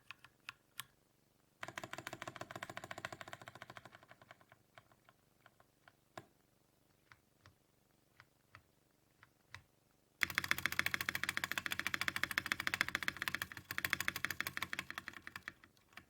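Typing on a mechanical keyboard fitted with Drop Invyr Holy Panda tactile switches, mounted in an aluminium plate and case, giving a clacky sound. A burst of fast typing comes first, then a few scattered single keystrokes, then a longer run of fast typing starting about ten seconds in.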